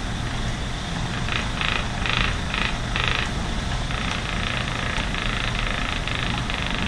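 Lendrum spinning wheel running with its very fast flyer spinning: a steady low whir, with a higher hiss that comes in short repeated pulses and then runs more continuously from about four seconds in.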